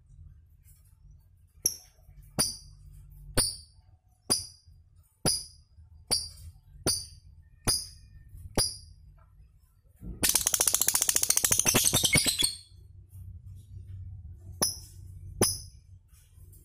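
Fischer's lovebird calling: sharp high chirps about one a second, then a fast rattling trill lasting about two and a half seconds, then two more chirps near the end.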